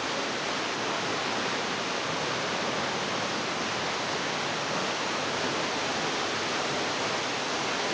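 A waterfall falling into a pool in a rock grotto: a steady, even rush of water.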